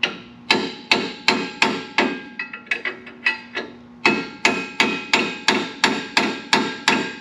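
A steel hammer striking a punch again and again, about three blows a second with a ringing metallic tap, in two runs broken by a brief pause near the middle. The punch is driving out a rust-seized brake caliper slide pin that has not yet come loose.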